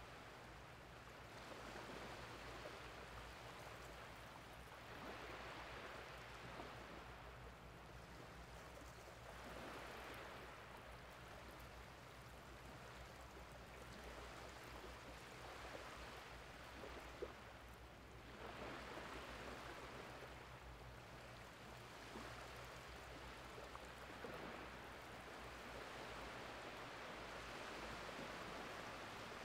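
Faint, gentle wavelets lapping and washing over a flat, shallow sandy beach on an incoming tide, the wash swelling and fading every few seconds. A faint steady low hum runs underneath, and a single short tick comes about halfway through.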